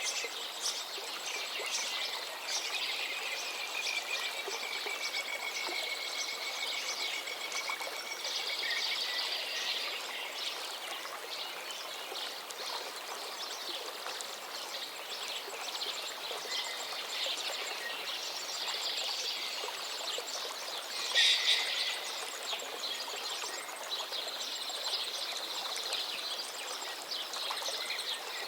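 Several songbirds singing and chirping over the steady rush of a flowing river, with a long trill early on and a louder burst of calls about three quarters of the way in.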